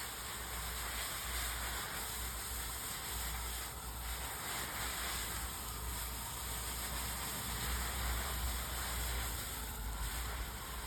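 Garden hose spray nozzle on its shower setting, spraying water steadily onto an AC air filter.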